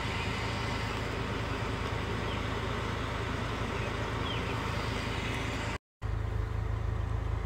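Steady outdoor background noise with a low rumble and a few faint high chirps. It drops out for a moment about six seconds in and gives way to the steady low hum of a car interior.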